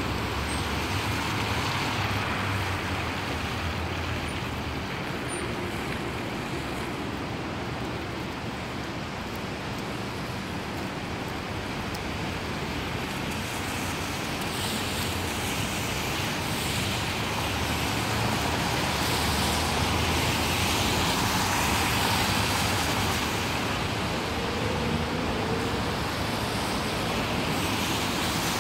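City traffic in the rain: car tyres hissing over soaked pavement and engines passing through the intersection, over a steady wash of rain and wet-road noise. The hiss swells louder past the middle as more cars go by.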